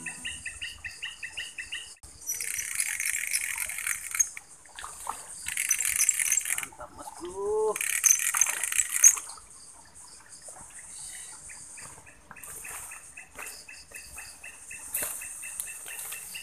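Insects chirping in a steady pulsing rhythm, with louder buzzing bursts three times in the first half. A brief rising-then-falling vocal sound is heard about halfway.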